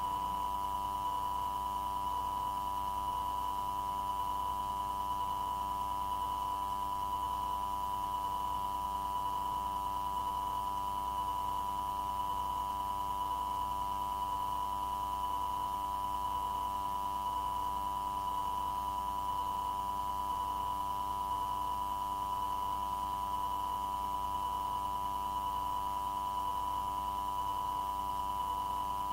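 A steady, unbroken electronic tone with a fainter higher tone and a low hum beneath, heard on the air-traffic-control radio recording channel while no one is transmitting.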